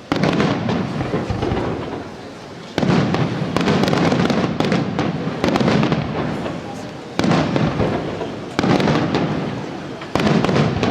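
Aerial fireworks shells bursting, about eight sudden bangs one to two seconds apart, each dying away over a second or so.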